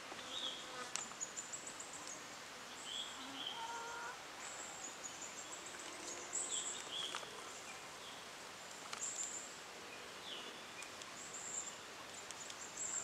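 Faint background of small birds chirping now and then in short, high calls over a low hiss, with a few faint clicks.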